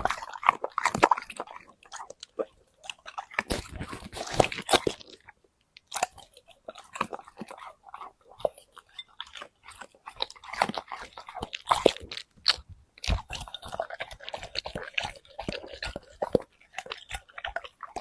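A dog crunching and chewing vegetables close to the microphone, in quick irregular bites with a brief pause about five and a half seconds in.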